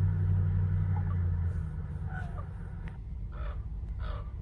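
Low vehicle engine rumble fading away over the first second and a half. Then, from about three and a half seconds in, a few short, faint caws of a raven.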